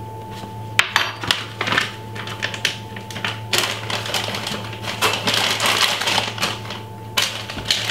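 Quick, irregular clicks and clattering of a metal spoon and spice containers being handled while seasoning, with a sharp click about a second in, over a steady low hum.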